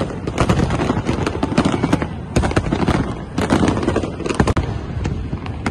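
A dense barrage of aerial fireworks: shells bursting and crackling many times a second, overlapping into a continuous rattle.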